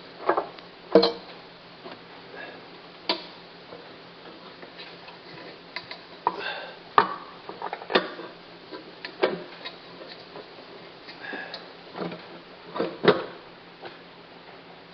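Irregular metal clicks and knocks as a car's air cleaner housing is handled and set back onto the carburettor, over a steady low hum.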